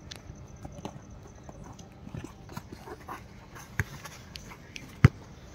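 A few scattered sharp thuds of a football being kicked during play. The loudest comes about five seconds in, with a smaller one shortly before it.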